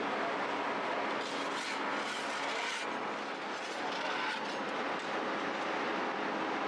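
Steady mechanical noise from bakery machinery, with a faint constant hum, and brief hissing swells about one to three seconds in.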